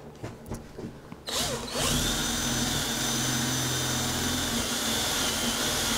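Ridgid cordless drill starting up about a second in and running steadily, turning a 3.5-inch hole saw into a wooden board, with a steady high whine over the cutting noise.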